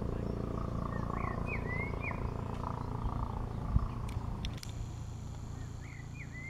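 Helicopter flying overhead at a distance: a steady low hum that slowly fades. A small bird chirps a few quick notes about a second in and again near the end.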